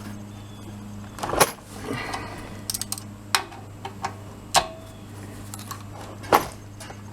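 Metal hand tools and bolts clinking and knocking while the crankcase side cover of a small go-kart engine is unbolted: about five sharp knocks and a few light clicks spread through, over a steady low hum.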